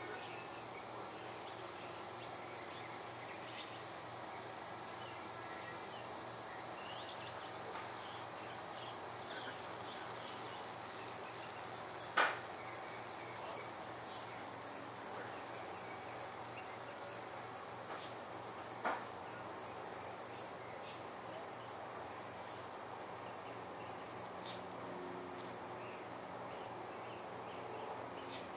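Steady high hiss of garden-hose water forced through an air chuck and valve stem into a tire's inner tube, with two small knocks partway through.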